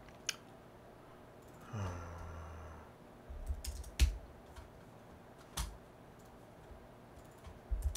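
Computer keyboard and mouse clicks, scattered and irregular, the loudest about four seconds in. A short low murmur of a man's voice comes about two seconds in.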